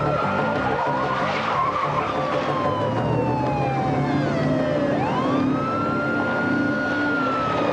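Police car siren wailing, its pitch sliding slowly up and down: it falls through the first half, swoops back up about five seconds in and falls again near the end. Police cars' engines run underneath as they pull up.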